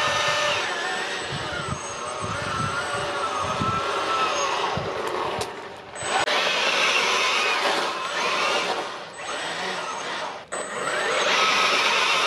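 Brushless-motor RC car, a 3D-printed VW Bugster being run in, driving with its electric motor whining up and down in pitch as it speeds up and slows, over gear and tyre noise. The sound drops briefly about six seconds in and again about ten and a half seconds in.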